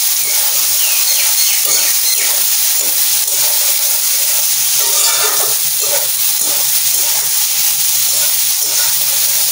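Marinated soya chunks and onions sizzling steadily in hot oil in an aluminium karahi while a spoon stirs them.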